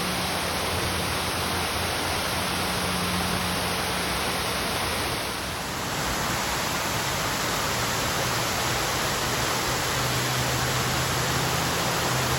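Waterfall: a steady rush of falling water, dipping briefly about halfway through.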